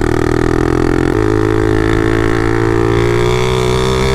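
Taotao DB17 125 pit bike's single-cylinder four-stroke engine running loud through a straight pipe with no muffler, a steady drone that shifts slightly in pitch about a second in.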